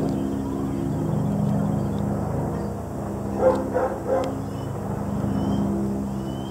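A dog barks three times in quick succession about halfway through, over a steady low engine-like hum.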